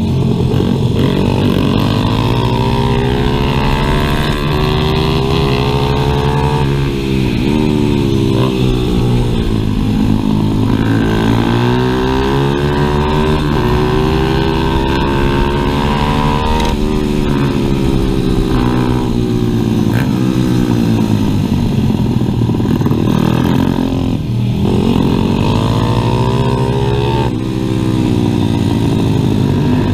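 Stock 140cc pit bike's single-cylinder engine heard from on board at race pace. Its pitch climbs under acceleration and drops back several times at gear changes and corner entries.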